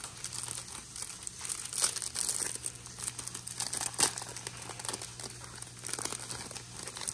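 Crinkly plastic Pokémon card packaging being torn open and handled, with irregular crackles and a few sharper snaps.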